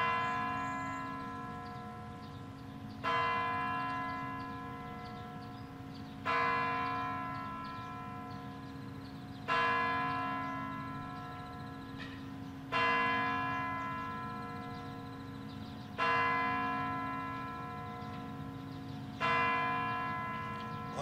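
Large clock bell of the Kremlin's Spasskaya Tower striking the hour: seven slow strokes about three seconds apart, each ringing and fading away before the next.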